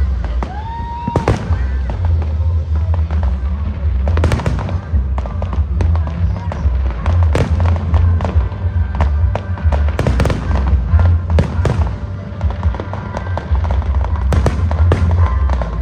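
Fireworks bursting in repeated sharp bangs, with a whistling shell rising to a held tone about a second in, over loud bass-heavy music.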